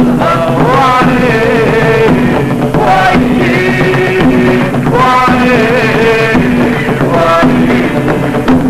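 Middle Eastern–style song: a bending melodic lead over a steady rhythmic backing with repeated low notes.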